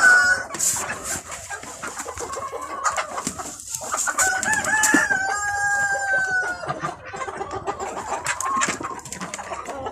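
Domestic chickens clucking around a feeder, with a rooster crowing once, a long call starting about four seconds in and lasting about two and a half seconds.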